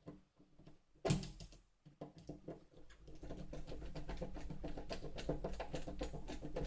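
Screwdriver tightening the screws of a door-handle backplate. There is a single knock about a second in, then from about three seconds on a steady run of fast small clicks.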